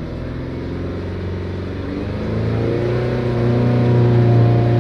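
Chevrolet Captiva Sport's four-cylinder engine being revved up from idle, its note rising in steps about two seconds in and again near the end. The engine is misfiring, cylinder 3 worst, with its misfire count climbing as it is revved.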